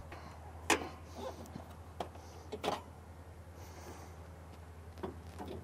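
A few sharp clicks and knocks, as from the Toyota Tacoma's hood being unlatched and raised, over a low steady hum.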